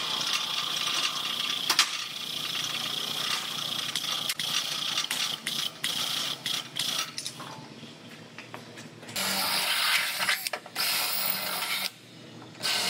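A cordless drill boring through the sheet steel of a car's radiator support, in runs of about a second with short pauses, in the second half. Before that, a steady mechanical hiss with scattered clicks.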